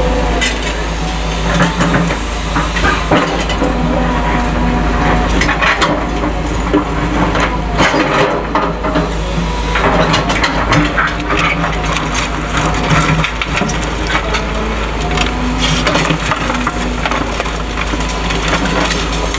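Caterpillar excavator diesel engines running steadily while the machines break and crush demolition rubble, with frequent irregular cracking and crunching of splintering wood and debris.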